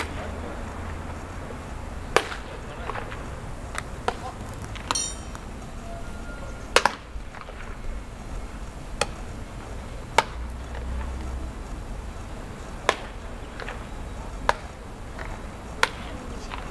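Baseballs smacking into leather gloves during catch practice: about ten sharp pops at uneven intervals of a second or two. A brief high ringing ping comes about five seconds in.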